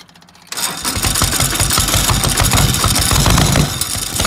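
Kubota D950 three-cylinder diesel being cranked over by its starter, starting about half a second in with a fast, even chugging. It almost catches but does not start, a hard cold start.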